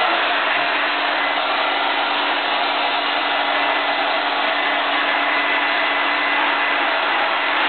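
Handheld hair dryer running steadily on high, an even rush of air over a constant low motor hum.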